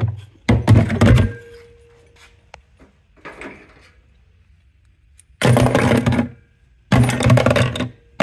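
Electric-motor rotors, some with rusted steel end caps and pulleys still on, dropped one after another into a plastic bucket, clunking and clattering. Two clunks come at the start and a faint knock follows a few seconds later. Near the end come two longer clattering drops of about a second each.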